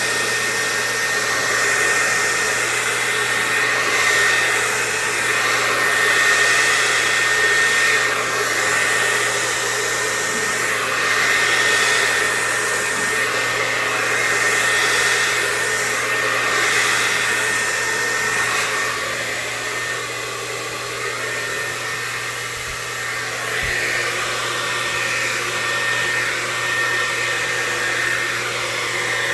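Handheld hair dryer running steadily: a rush of blown air with a thin, high, steady whine from its motor. The level swells and dips a little, lowest about two-thirds of the way through.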